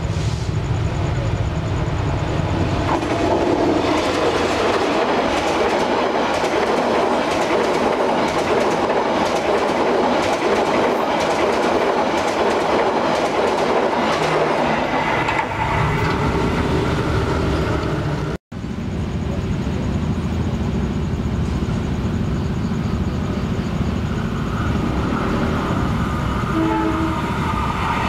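Passenger train hauled by a CC 206 diesel-electric locomotive passing close by, with its wheels clattering over the rail joints and its horn sounding. The sound breaks off abruptly about two-thirds of the way through, followed by the rumble of another train on the line.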